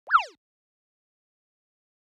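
A short squeak that jumps up in pitch and then slides quickly down, lasting about a third of a second.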